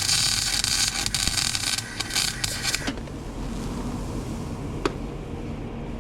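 MIG welder arc crackling and sizzling for about three seconds, then cutting off. A steady low engine-like running sound continues underneath, with one sharp click near the end.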